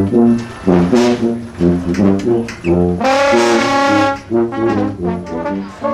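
Brass band playing, a trombone and a sousaphone to the fore: a bouncing bass line of short low notes under the horns, with a long held brass note about three seconds in.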